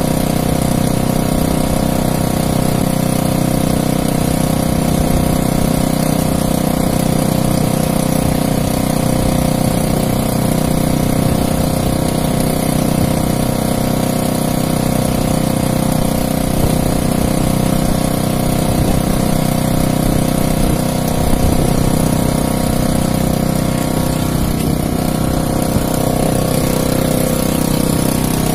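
Outrigger fishing boat's engine running steadily.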